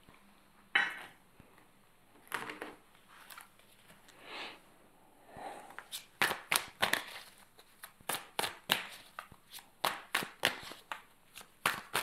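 A deck of oracle cards being shuffled by hand: a few soft rustles at first, then from about halfway through a quick run of crisp card clicks, about two to three a second.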